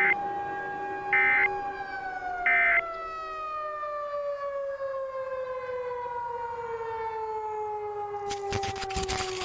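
An outdoor tornado warning siren winding down, its pitch falling steadily. Three short electronic data bursts, the Emergency Alert System end-of-message tones, sound over it in the first three seconds, each about 1.3 s apart. About 8 s in, a burst of crackling static cuts in.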